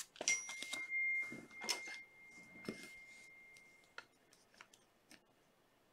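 Rustling and light clicks of a trading card in a plastic sleeve being handled, mostly in the first three seconds. A thin steady high-pitched tone sounds alongside and stops about four seconds in; only a few faint ticks follow.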